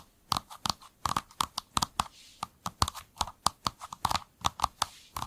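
AI-generated typing sound of a keyboard made to look like stacked paper: an uneven run of soft key clicks and taps, several a second.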